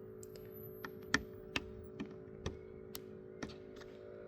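Light, irregular clicks and taps, about ten of them, as the small rubber seal and plastic locking pin of an EV charging port are handled and fitted, over a steady faint background tone.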